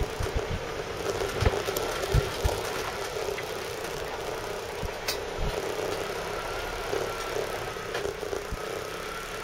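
Land Rover Series 3 driving on the road, heard from inside its cab: a steady drone of engine, transmission and road noise with a faint wavering whine. Low knocks and thumps from the body and running gear come several times in the first couple of seconds and once more about five seconds in.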